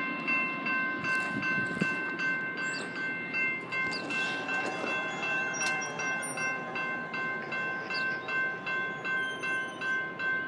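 Norfolk Southern locomotive's multi-chime air horn held in one long unbroken blast, several steady tones sounding together as a chord, over the rumble of the passing train.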